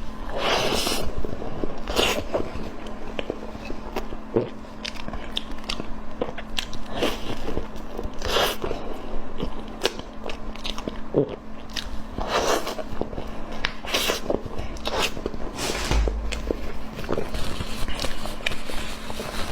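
Close-miked eating sounds: repeated bites and chewing, with many short clicks and a few longer, louder mouth noises.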